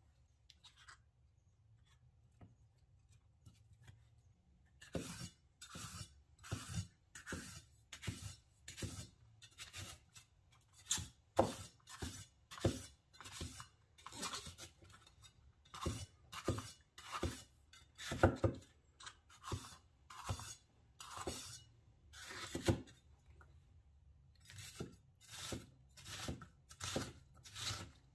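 Chef's knife chopping green bell pepper strips on a wooden cutting board: a steady run of short, crisp cuts, about two a second, that begins about five seconds in and pauses briefly near the end.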